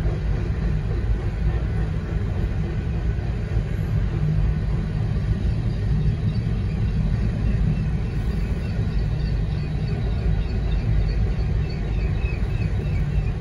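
Union Pacific grain train of hopper cars rolling through a grade crossing, a steady low rumble heard from inside a car. A faint, rapidly repeated ringing from the crossing bell comes through in the later seconds.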